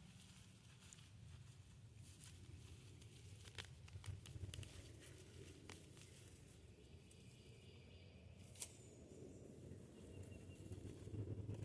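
Faint rustling and scattered small clicks and scrapes of soil being dug through to unearth potatoes.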